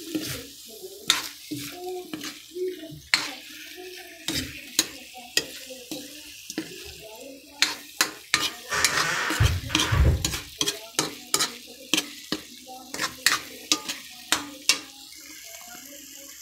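Stir-frying bitter gourd and pork in thickened oyster-sauce gravy over high heat: a utensil scrapes and knocks against the pan in quick, irregular sharp clicks over a steady sizzle. There is a louder low thump and rush about ten seconds in, and the strikes stop near the end.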